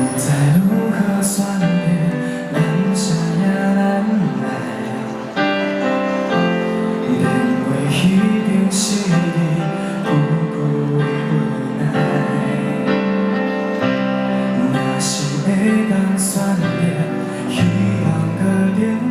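Live pop song played by a band over a concert sound system, with steady sustained chords and a moving bass line.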